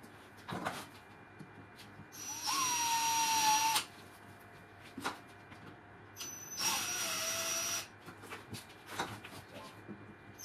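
Cordless drill boring into plexiglass through a 3D-printed drill guide block, in two short runs, the motor's whine sagging in pitch as the bit bites. A few light knocks between the runs.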